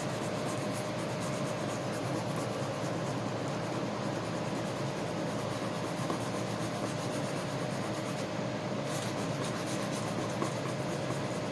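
Sandpaper rubbing over a car bumper by hand in quick repeated scratchy strokes, sanding off the old coat before painting.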